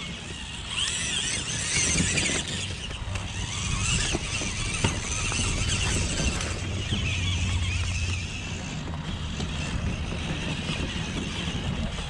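1/5-scale Redcat Clawback RC rock crawler driving over loose dirt: its electric motor and gears whine, the pitch wavering up and down with the throttle.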